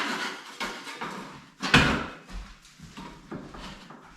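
A few short scrapes of a scraper against wet popcorn ceiling texture, the loudest about two seconds in.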